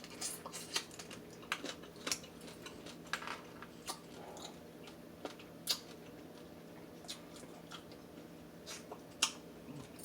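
A person chewing food close to the microphone: wet mouth sounds with irregular sharp crunches.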